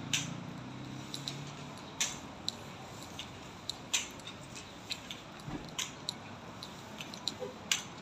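Footsteps clicking on a hard floor while walking, with sharp strikes about every two seconds and fainter ticks between. A low hum fades out in the first two seconds.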